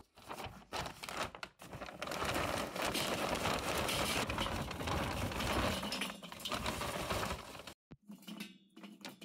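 Charcoal briquettes poured into a kettle grill's charcoal ring. A few scattered clinks come first, then from about two seconds in a continuous rattling pour that stops suddenly near the end, followed by a few light clicks.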